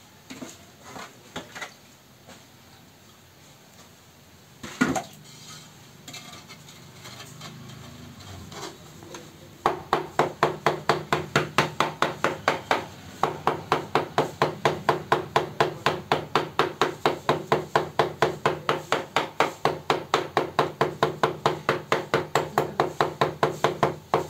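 Floor tile being bedded into wet mortar by knocking on it with the butt of a wooden tool handle: a few scattered knocks and one sharp knock about five seconds in, then from about ten seconds a fast, even tapping of about four knocks a second.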